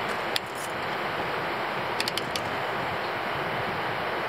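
Short runs of sharp metallic clicks from a torque wrench set at 40 pounds, tightening the outboard gear case bolts: one click about half a second in, then a quick run of three or four around two seconds in. A steady background hiss runs underneath.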